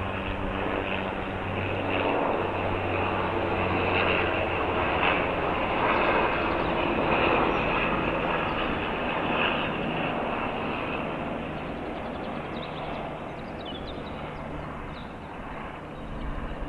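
An aircraft flying past, its engine drone swelling to a peak near the middle and then fading away. The uploader takes it for a helicopter.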